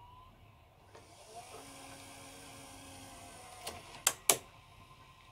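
Panasonic AU-520 MII portable VTR loading a cassette: its loading motor runs with a steady whine for about three seconds as the tape is pulled in, then the mechanism snaps into place with two sharp clicks near the end.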